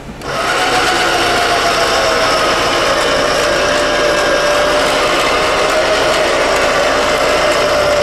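Off-road 4x4 working hard under load: a loud, steady mechanical whine that starts abruptly, sags slightly in pitch and climbs again near the end.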